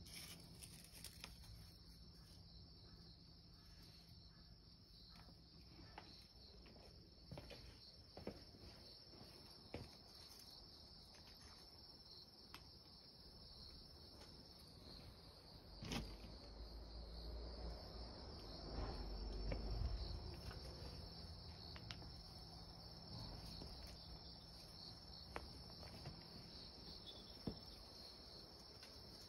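Insects singing in a steady high-pitched trill. A few faint ticks are heard, and a louder low rustle comes about halfway through.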